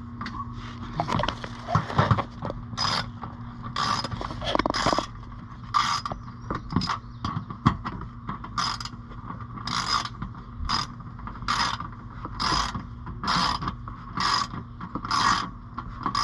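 Socket ratchet clicking in repeated short back-and-forth strokes, roughly one burst a second, as the bolts of an underbody cover are driven in with an 8mm socket. A steady low hum runs underneath.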